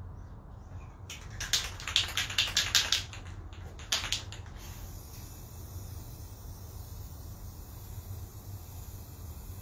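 Aerosol spray-paint can being shaken, its mixing ball rattling in quick clacks for about two seconds, with a couple more clacks just after. From about halfway through, the steady hiss of the can spraying.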